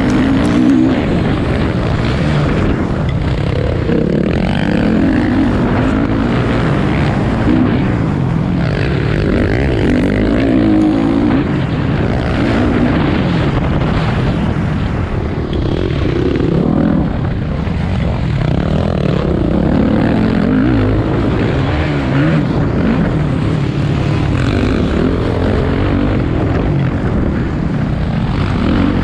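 Motocross bike engines running on the track, the pitch climbing and dropping again and again as the throttle is opened and closed.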